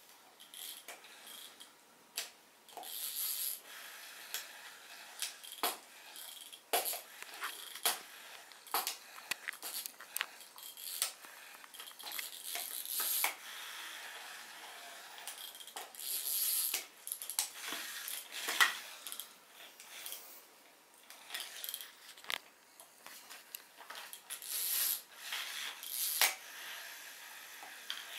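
Pull-string toy mouse's wind-up mechanism chattering in several short spells as a puppy pulls its string, amid scattered clicks and knocks.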